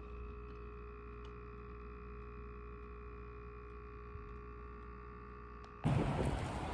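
Refrigerator humming steadily, a faint even whine over a low hum. Near the end it cuts abruptly to much louder street noise.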